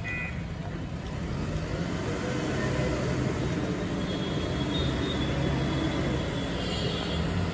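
JCB backhoe loader's diesel engine running steadily as the machine drives across wet ground with a loaded front bucket.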